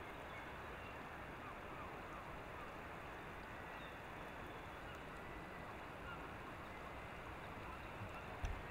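Steady hiss of shoreline ambience with a few faint, short bird calls now and then, and a single low thump near the end.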